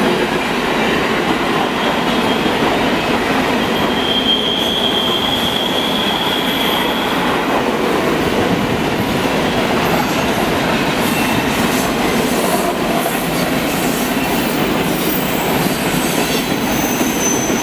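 Canadian Pacific freight train rolling past, a steady dense rumble of locomotive and wheels on rail that fades in at the start. A high wheel squeal is heard for a few seconds from about four seconds in.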